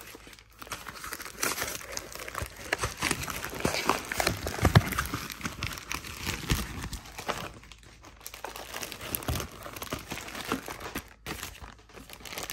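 Plastic bags and paper packaging crinkling and rustling as hands sort through a TV's boxed accessories and lift out the remote in its plastic bag. There is a thump about halfway through.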